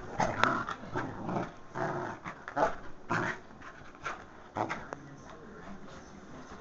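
A freshly showered small dog in an excited post-bath frenzy, making short vocal noises and snuffles in irregular bursts as it scrambles and rubs against furniture. The bursts die down about five seconds in.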